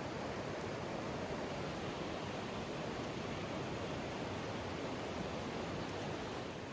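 Mountain stream water rushing over rocks, a steady, even flow noise.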